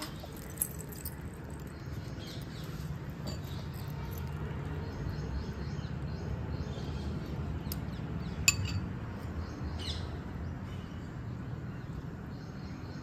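A metal spoon clinking a few times against a small glass bowl during spoon-feeding, the loudest clink about eight and a half seconds in. Birds chirp faintly over a steady low background rumble.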